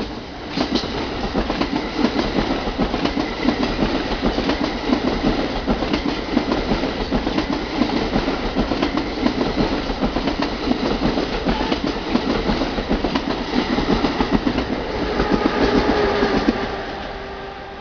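Train of bi-level passenger coaches pushed by an ALP-46 electric locomotive rolling past close by, its wheels clicking rapidly over the rail joints. Near the end the clatter fades and a steady hum comes in.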